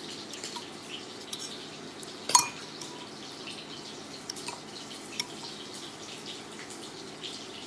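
Coconut-coated shrimp frying in avocado oil in a skillet: a steady sizzle with scattered small pops and crackles. A single sharp metallic clink sounds a little over two seconds in.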